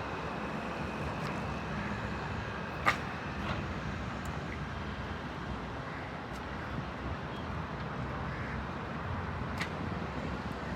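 Doosan DX340LCA excavator's diesel engine running steadily while digging, with a sharp knock about three seconds in and a fainter one near the end.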